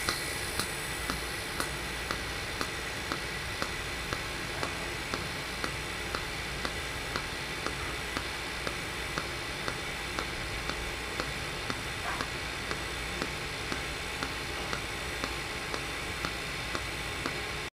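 Mechanized TIG welding arc hissing steadily, with a light tick about twice a second as the pulsed, oscillating arc cycles.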